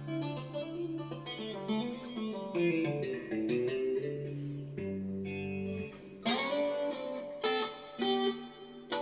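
Fender Stratocaster electric guitar on a clean tone, played with two-hand tapping: a quick, flowing run of tapped arpeggio notes. In the last few seconds a handful of sharper, brighter plucked notes ring out.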